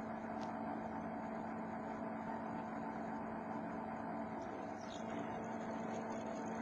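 Homemade CNC machine running, its motors giving a steady hum with a few fixed tones and no change in pitch.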